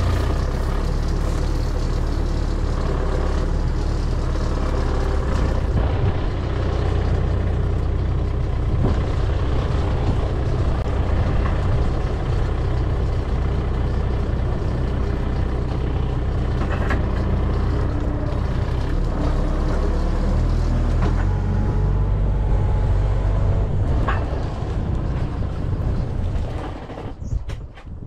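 Manitou telehandler's diesel engine running under load as its boom fork presses a wooden post into the ground. The engine note shifts a few times and falls away near the end.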